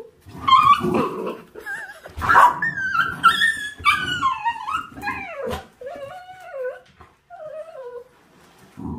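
A Welsh corgi correcting a young mixed-breed puppy: growls and sharp barks in the first seconds, with many high, wavering yelps and whines that grow quieter in the second half.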